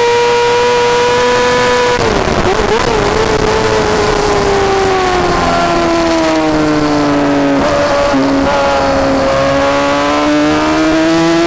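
Yamaha R6 inline-four engine heard onboard on track. It is held at high revs, then about two seconds in it drops suddenly and wavers as the rider brakes and shifts down. The pitch slides lower through the long corner and rises again near the end as the bike accelerates out.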